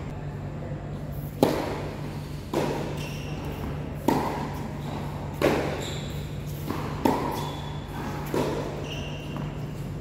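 Tennis ball struck back and forth by racquets in a doubles rally: six sharp hits at a steady pace, about one every second and a half, each with a short echo.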